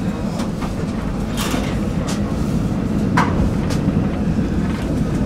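Tram running along its track: a steady low rumble of wheels on rail, with a few sharp clacks every so often.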